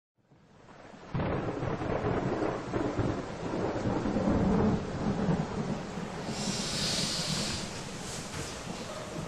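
A low rumble that fades in from silence over the first second and then runs on unevenly, with a hissing swell about seven seconds in.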